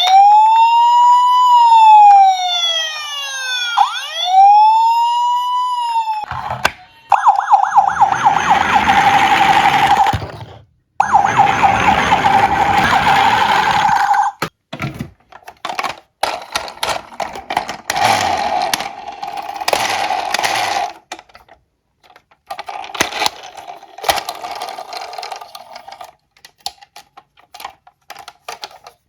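A siren wailing up and down for about six seconds, then the rattling and clatter of die-cast toy ambulances and police cars running down a slope, breaking up into many short sharp clicks and knocks.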